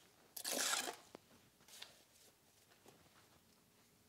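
A steel mason's trowel scraping mortar onto the end of a hollow concrete block, buttering the face-shell edges for a full head joint: one loud swipe about half a second in, then a few fainter scrapes.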